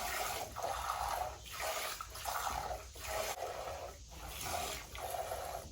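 Hand-milking a goat: rhythmic squirts of milk hissing into a pail, about two a second.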